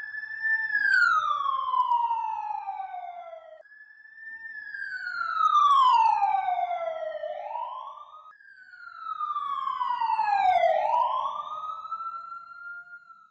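Siren-like whistling tone played three times. Each time it slides down in pitch over about three seconds, and the second and third end with an upward swoop.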